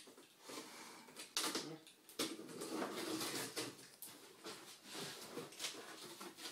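Large cardboard shipping box being opened and handled: irregular rustling and scraping of cardboard and packing, with a few sharp knocks.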